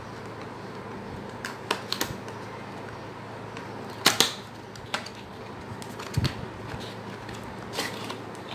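Objects being handled close by: irregular clicks and taps, a pair of louder knocks about four seconds in, over a steady low background hum.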